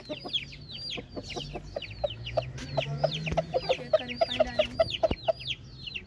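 Busy chirping of many birds: short, high, falling peeps repeating several times a second, joined in the middle by a quick run of lower clucks. A single knock sounds about five seconds in.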